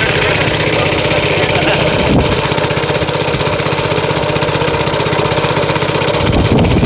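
A small engine running steadily at a constant speed, with a fast, even chugging rhythm and a hiss over it.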